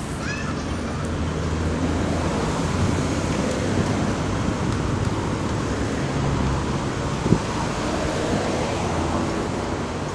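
Steady roadside traffic noise: a rumble of car and bus engines and tyres on a busy street, with a brief sharp knock about seven seconds in.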